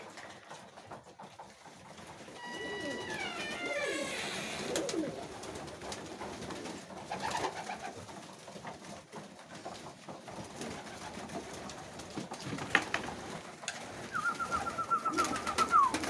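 A flock of pigeons cooing while they feed on grain in a loft, with low gliding coos in the first few seconds. A single knock comes about three-quarters through, and a quick repeated higher bird call near the end.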